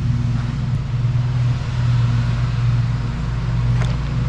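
A steady low motor hum, like an engine running at idle, with a couple of faint ticks.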